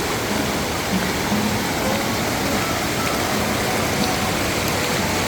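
Steady rush of flowing water from a river and waterfalls.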